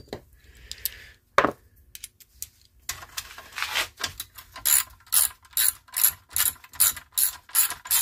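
Hand ratchet with a 7/16 socket clicking as it runs down bolts on a small lawnmower engine. There is a single knock about a second and a half in and a quick rasping run of clicks around three seconds. After that come evenly spaced ratchet strokes, about two and a half a second.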